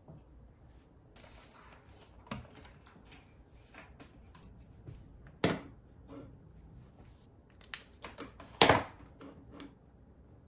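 Small objects being set down and shifted on a wooden desktop: scattered light knocks and clatter, with a short sliding scrape a little over a second in. Two louder thunks come at about five and a half and almost nine seconds in.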